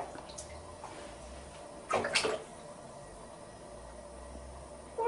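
Shallow bathwater moving around a cat standing in the tub: faint sloshing, with one short louder splash about two seconds in.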